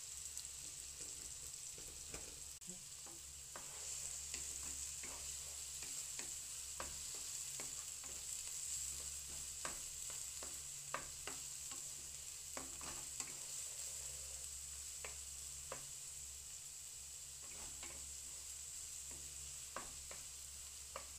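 Chopped onions and garlic sizzling in oil in a nonstick frying pan, with a steady hiss, while a wooden spatula stirs them, scraping and tapping the pan in many short irregular clicks.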